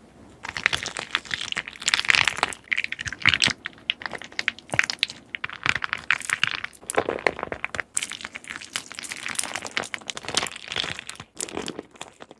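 Slime being squeezed and kneaded by hand, giving dense, irregular crackling and popping in louder bursts. It stops suddenly just before the end.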